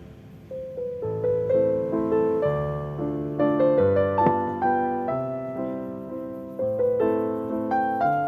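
Background piano music: a gentle melody of single notes over low bass notes, growing louder about half a second in.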